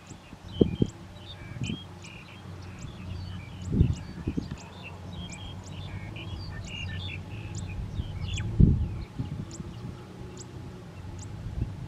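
Farm tractor engine running steadily at low speed, with birds chirping over it throughout. Several low heavy thumps stand out, a few in the first two seconds, two about four seconds in and a loud one about eight and a half seconds in.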